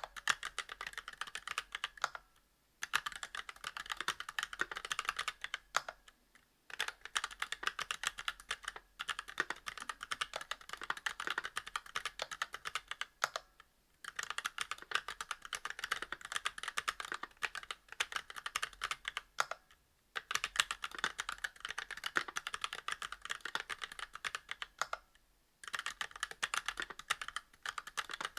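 Continuous fast typing on a Monstargear Alu XO v2 mechanical keyboard with Kailh Box Black linear switches, a brass plate and GMK doubleshot keycaps: a dense patter of key strikes and bottom-outs, broken by brief pauses a few times.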